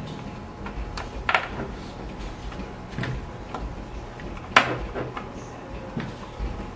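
Scattered clicks and light metallic knocks of parts and hand tools being handled during disassembly of a self-balancing scooter, the sharpest knock about four and a half seconds in with a short ring, over a faint steady hum.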